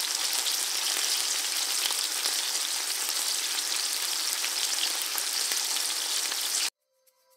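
Curry puffs deep-frying in hot oil: a dense, even sizzle with fine crackling. It starts suddenly and cuts off abruptly near the end.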